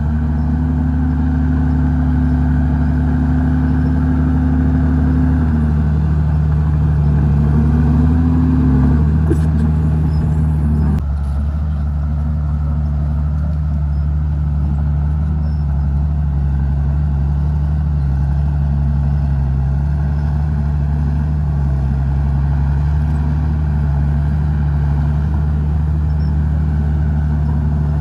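Heavy diesel engine of earthmoving machinery running under working load, its pitch rising and falling as the load changes, with an abrupt change in the sound about eleven seconds in.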